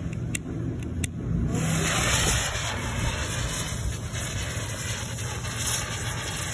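A torch lighter clicks a couple of times at the fuse. About a second and a half in, a small Blinker ground-spinner firework catches and hisses steadily as it spins and throws sparks, over a steady low rumble.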